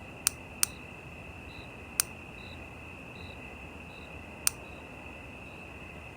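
Steady high-pitched insect chirring with a fainter chirp repeating a little more than once a second, broken by four sharp clicks, two close together right at the start.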